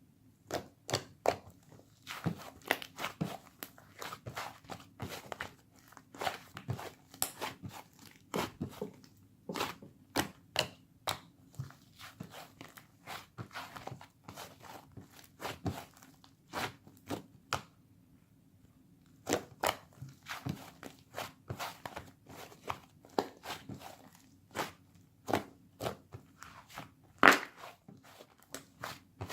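Blue and white mixed slime being worked by hand, giving off rapid, irregular clicks and pops, with a short pause a bit past the middle and one louder pop near the end. A faint steady hum runs underneath.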